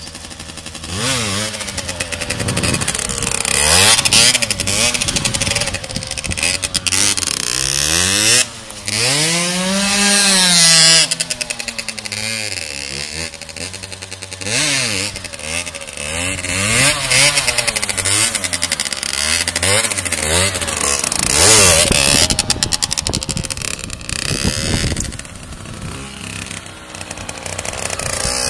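Motorcycle engine revved hard over and over during stunt riding, its pitch climbing and dropping with each throttle blip, with a long rise and fall about ten seconds in.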